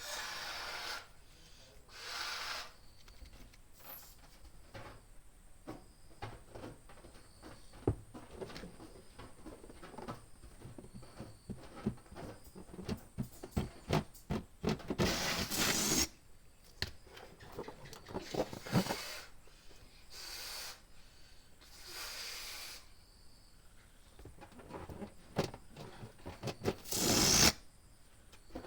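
Balloon pump pushing air into rubber balloons in short hissing strokes of about a second each, several times, with the balloon rubber rubbing and crackling in between.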